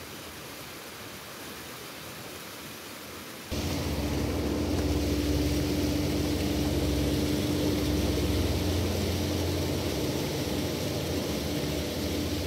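Steady hiss of falling water, then, about three and a half seconds in, a sudden switch to a louder steady mechanical drone: a low rumble with a held hum above it.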